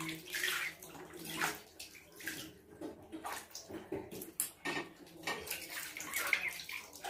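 Water splashing and sloshing in a plastic basin as a duckling is washed by hand, in many small irregular splashes.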